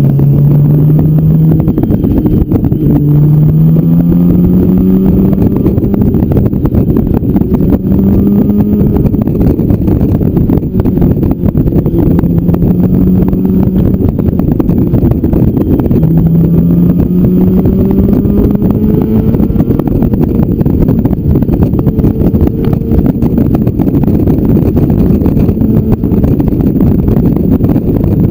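Motorcycle engine under way, its pitch climbing and dropping back again and again as the rider accelerates and shifts through the gears, under heavy wind rush on the microphone.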